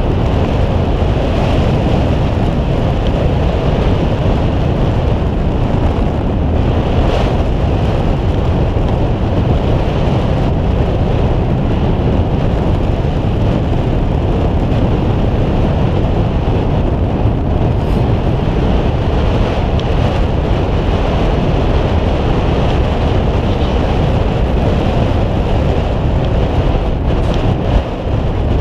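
Steady wind noise on the microphone over the low rumble of a boat underway at sea.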